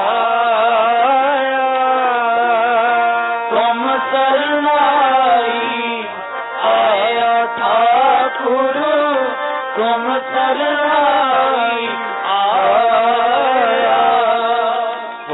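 Sikh devotional kirtan music: a wavering, sliding melodic line with accompaniment, in phrases a few seconds long.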